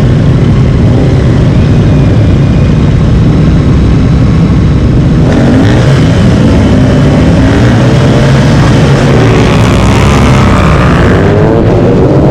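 Racing motorcycle engine running loudly with a steady low drone, then revving harder with rising and falling pitch from about five seconds in.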